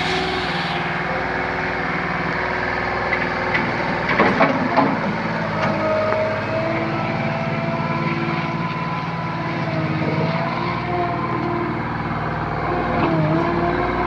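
Small skid steer loader's engine running steadily under hydraulic load, its pitch rising and dipping as the machine is driven and the arms are worked. A few clanks about four seconds in.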